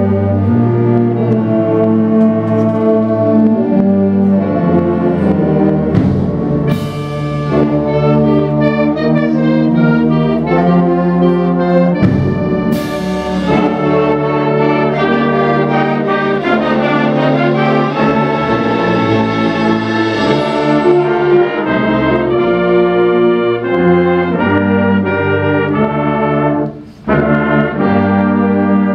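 Middle school concert band playing a piece on woodwinds and brass, with two sharp crashes about seven and thirteen seconds in and a short break near the end.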